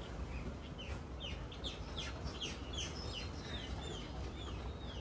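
Birds calling: a quick run of short, downward-sliding notes, about three a second, starting about a second in, over a steady low rumble.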